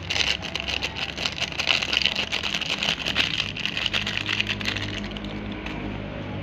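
A steady low mechanical hum, clearer from about three seconds in, under dense crackling and hiss in the first half.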